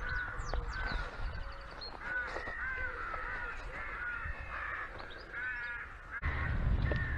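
Wild birds calling: many short, clear calls and chirps, some in quick runs, a few with a rougher, richer tone. About six seconds in, a steady low rumble sets in.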